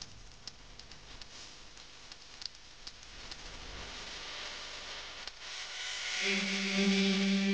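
Faint, scattered clicks of coloured aquarium gravel being pushed about by hand in a glass tank, then a soft rising hiss. Music starts about six seconds in.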